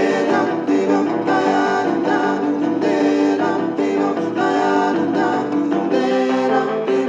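Background music: a song with singing and instruments, such as guitar, and a steady beat.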